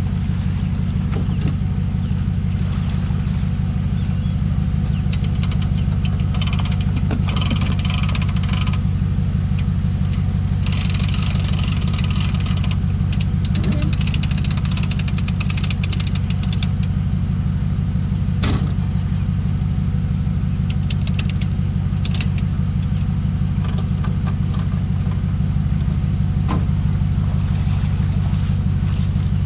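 Pickup truck engine idling steadily, with two stretches of rapid clicking a few seconds long in the first half and a single sharp knock about two-thirds of the way in.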